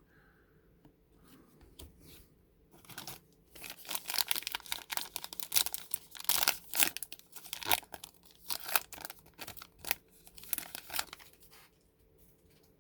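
Plastic foil wrapper of a 2021 Topps Heritage baseball card pack being torn open and crinkled by hand: a dense run of crackling from about three seconds in, dying away near the end.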